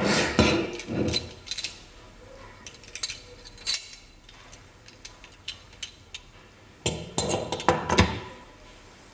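Stainless steel garlic press being handled on a wooden table: metal clicks, clinks and knocks. A cluster comes in the first second or so, faint scattered ticks follow, and another cluster of knocks comes about seven to eight seconds in.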